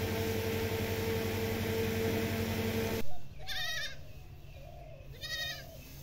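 Electric fan running with a steady hum and rush of air while rice is winnowed in its draught. It cuts off suddenly with a brief knock about three seconds in. A goat then bleats twice, each call short and quavering.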